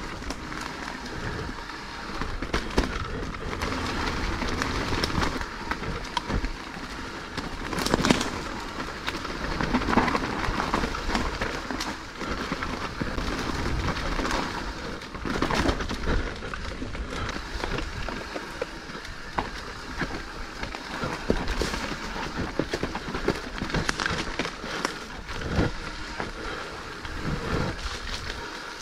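Mountain bike being ridden over rough trail ground: a continuous rumble of tyres on dirt and stones, with frequent knocks and rattles from the bike.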